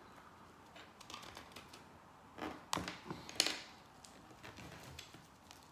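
Light plastic clicks and taps of plastic pry tools and guitar-pick openers against an iPod Classic's case and the wooden tabletop, as the case seam is being wedged open. The clicks come irregularly, bunching into a louder cluster about halfway through.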